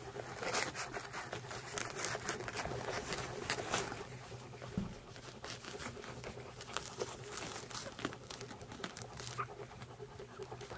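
One-day-old Pembroke Welsh corgi puppies suckling at their mother: a dense stream of quick wet smacking and clicking sounds, with soft rustling as they push against her fur.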